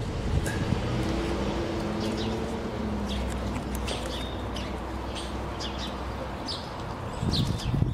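Birds chirping in short, scattered calls over a steady low background rumble.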